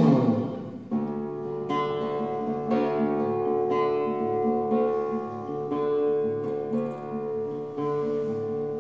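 Background music: a guitar plucked and strummed, a new chord about once a second over ringing notes.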